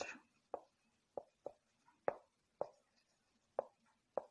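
Marker pen writing on a whiteboard: about seven short, faint strokes and taps as the words are written.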